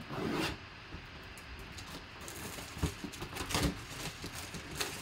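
Shrink wrap being slit with a knife and pulled off a cardboard box: a short scraping rip at the start, then scattered crinkles and crackles of the plastic.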